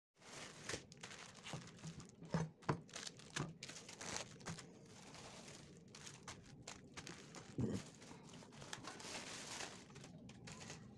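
Plastic packaging of tempeh blocks crinkling as the packs are handled and set down on a wooden cutting board, with irregular crackles and a few soft knocks, the loudest about two and a half seconds in and again near eight seconds.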